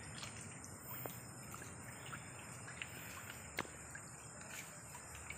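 Night insects such as crickets calling steadily as a thin, high, continuous hum, with a few faint clicks over a low background hiss.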